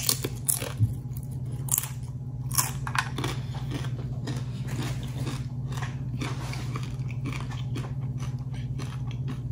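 A person chewing crisp fried tortilla chips, with a run of crunches over the first few seconds that thin out toward the end. A steady low hum runs underneath.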